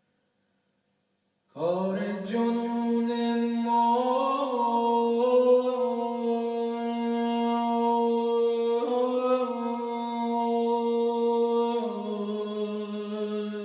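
A man's unaccompanied voice in Persian classical singing (avaz). It comes in about a second and a half in on one long held note, lifts slightly twice, then settles lower near the end.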